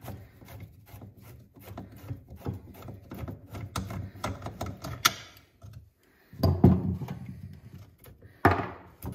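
Socket ratchet clicking in quick runs as a 10 mm nut is backed off an auger-paddle shoulder bolt on a single-stage snowblower, the bolt held still with a Phillips screwdriver. After about six seconds, and again near the end, louder knocks and clatter come as the loosened bolt and worn rubber paddle are worked free.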